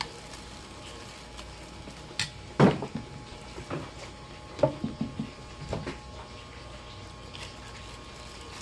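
Metal spoon knocking and scraping against a bowl while eating: a handful of short clinks and taps between about two and six seconds in, the loudest about two and a half seconds in.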